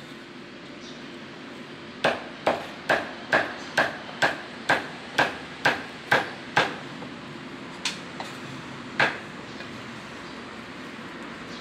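Cleaver chopping on a cutting board at a noodle stall: about eleven sharp chops at roughly two a second, then a pause and three more spaced-out chops.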